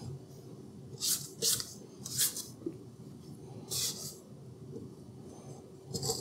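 Hobart N50 gear-driven stand mixer running steadily with a low hum, its beater creaming butter and sugar, with a few short hissy noises on top.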